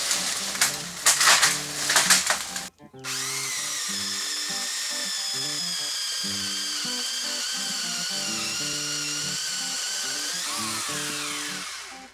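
Electric pole saw (TackLife 8-inch, 6-amp) running steadily as it cuts through a 4-inch English laurel branch, its whine sagging a little under load and then winding down with a falling pitch near the end. Louder rough bursts come in the first few seconds, before a short break. Background music with a steady beat plays underneath throughout.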